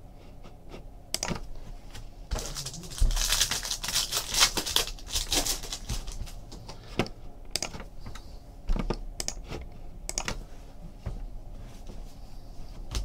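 Trading card packs being opened and cards handled: scattered sharp clicks and taps, with a few seconds of crinkling wrapper noise about two and a half seconds in.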